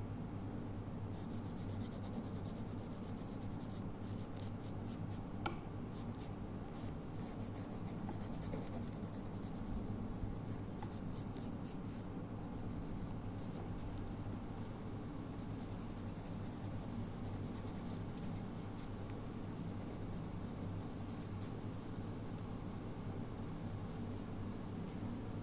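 A nail buffing block rubbing quickly back and forth across fingernails, a dry scratchy sound in runs of rapid strokes with short pauses.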